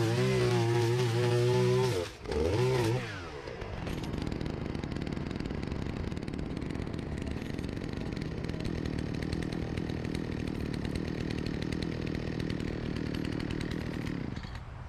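String trimmer's small engine running at full throttle for about two seconds, then let off so it winds down, and idling steadily after that.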